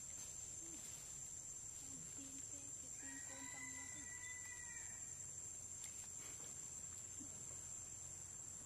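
Steady high-pitched drone of insects, with a short run of about half a dozen low, evenly spaced calls about two to four seconds in.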